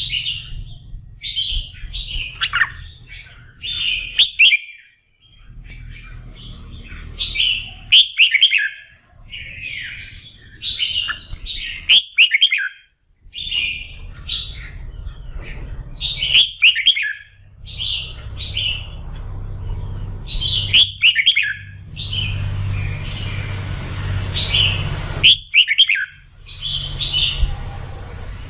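Red-whiskered bulbul singing its full, rousing song of short, rich, warbled phrases, repeated every second or so, with a low hum underneath and a sharp click every few seconds.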